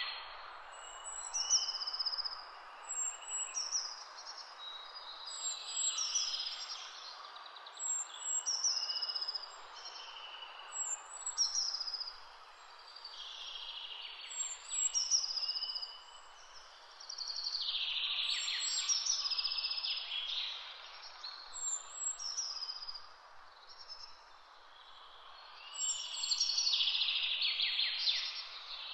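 Birds singing, short high notes repeating about once a second with fuller bursts of song near the middle and the end, over the steady rush of a shallow rocky river.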